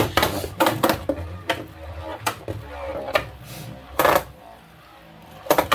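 Beyblade Burst Surge top (Spiral Treptune on its Slingshot driver) spinning aggressively in a plastic Hypersphere stadium, clattering against the walls with a string of sharp, irregular knocks. A low hum runs underneath for the first few seconds.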